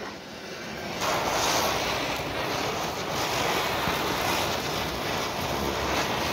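Ground firework spinners (chakri) and fountains throwing sparks, a dense steady hiss that swells up about a second in.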